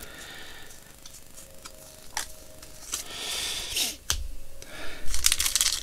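Yu-Gi-Oh trading cards being handled: scattered light clicks and soft slides of card stock, with a quick run of clicks about five seconds in.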